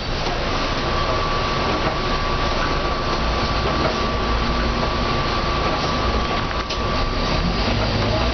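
Mercedes-Benz O405N bus with a ZF automatic gearbox, heard from on board as it drives along: engine and drivetrain running steadily with tyre and road noise, and a thin steady high whine through most of it.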